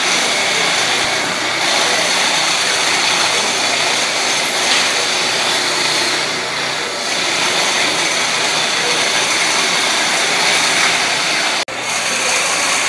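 Wood lathe running while a lathe duplicator's cutter shaves a spinning wood baluster blank: a steady motor hum under a continuous cutting hiss, with a split-second dropout near the end.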